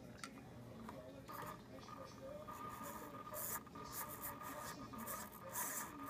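Small RC servos whirring in several short bursts over a steady high hum that starts about a second in.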